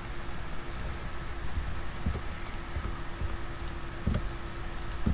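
Computer keyboard typing: scattered, irregular keystrokes, a few louder ones about two and four seconds in and near the end, over a faint steady hum.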